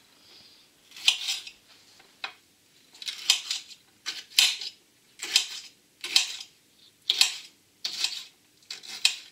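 Kitchen knife cutting a red pepper on a glass chopping board: a sharp cut-and-clack about once a second, some strokes coming as quick doubles.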